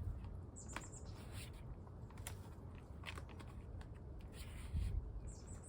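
Scattered light clicks and brief rustles of hands fitting a metal front plate back onto the bike and handling its bolts.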